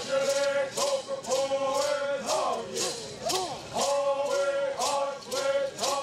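A group of men singing a bird song together, with rattles shaken in a steady beat about twice a second.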